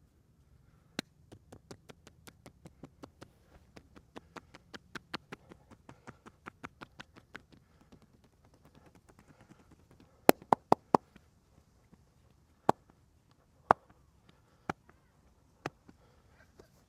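Percussive massage with the hands on the body: a run of quick light taps, about five or six a second, then a burst of four loud sharp slaps and a few more single slaps about a second apart.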